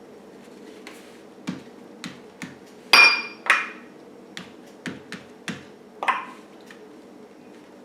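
Light clinks and taps of a small ceramic Fiesta cup handled on a table and dipped into while coffee staining paper, about a dozen short knocks with the loudest, ringing clink about three seconds in.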